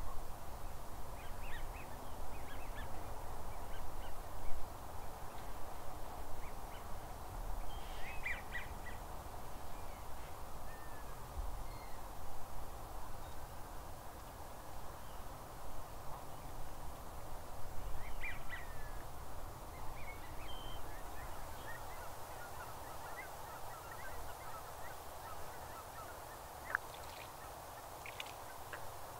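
A distant flock of geese calling, a steady chattering chorus with occasional single, higher calls standing out.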